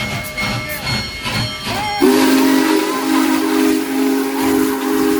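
Union Pacific Big Boy 4014 steam locomotive working with rhythmic exhaust chuffs. About two seconds in, its steam whistle opens into a long, loud, deep chord over a hiss of steam.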